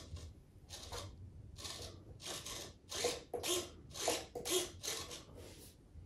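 Water swishing and churning in a bathtub in about nine or ten short, irregular surges, stirred by the model ship's propellers turning in the water for the first time.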